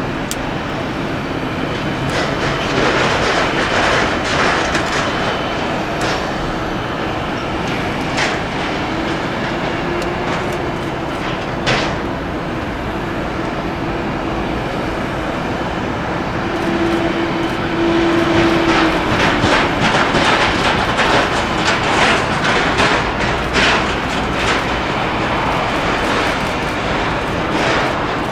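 A train running past with a steady rumble, its wheels clacking, louder and more clattery in the second half.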